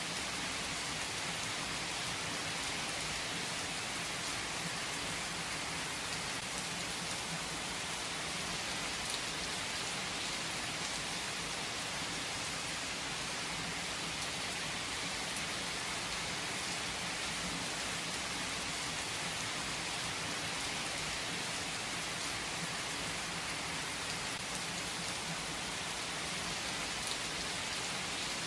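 Heavy rain falling steadily, a dense even hiss of countless drops with the odd sharper drop hit standing out.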